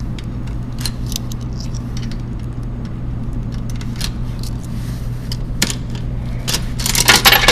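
Small metallic clicks and rattles from a coin-operated toy vending machine being worked, over a steady low store hum. A busier flurry of rattling comes near the end.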